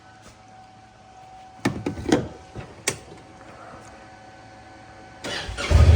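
A few sharp knocks and clunks, like a vehicle door being opened and shut, about two seconds in. Near the end the Honda vehicle's engine starts up and settles into a loud low running rumble.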